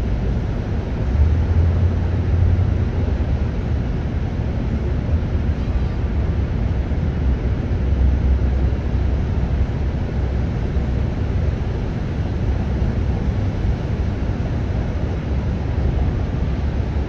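Wind rumbling on the microphone over a steady background hiss, swelling about a second in and again about eight seconds in.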